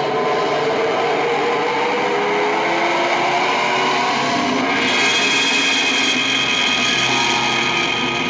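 A dark music track played back from a recording-software session, picked up from the speakers: a dense, noisy drone with held and gliding tones. It grows brighter about five seconds in, and a low rumble joins near six seconds.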